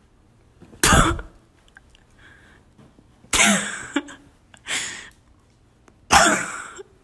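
Pillows whacking: four loud, sudden hits, about a second in, at about three and a half seconds, near five seconds and near six seconds.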